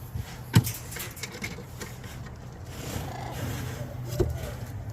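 Handling noise as someone enters an aviary to check a nest: two sharp knocks, one about half a second in and one near the end, over a steady low hum.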